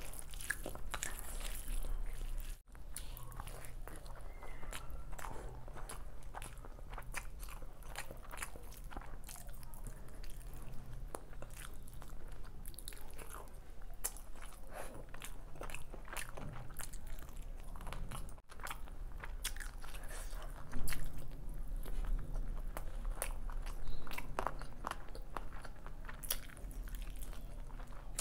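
Close-miked chewing of mouthfuls of chicken biryani eaten by hand: steady wet mouth clicks and smacking with crunchy bites. A couple of sharper, louder bites come near the end.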